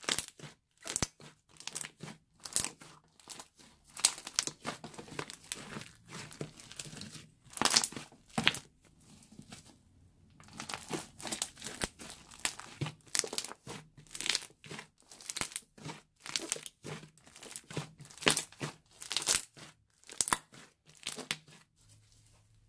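Green fluffy slime with small beads mixed in, being kneaded, squeezed and pulled apart by hand: a sticky, crackly burst with each squeeze or pull, one or two a second, with a short lull about ten seconds in. The kneading stops near the end.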